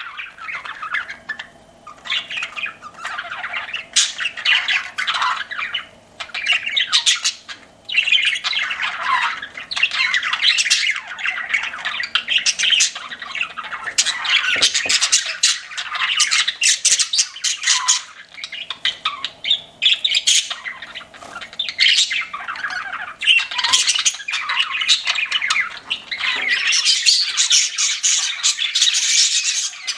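Pet budgerigars chirping and chattering almost without pause, a fast jumble of short calls with a few brief lulls.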